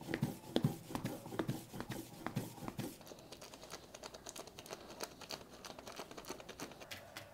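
Masa being ground on a stone metate with the hand stone: a run of stone-on-stone knocks and scrapes, about four a second, for the first three seconds. After that comes a fainter crackle of small clicks as the plastic sheet is peeled off a pressed tortilla on the tortilla press.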